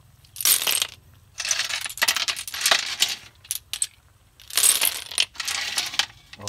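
Hard sea snail shells (sikad-sikad conchs) clattering against each other and the metal wok as they are handled, in about five short bursts of rattling clinks.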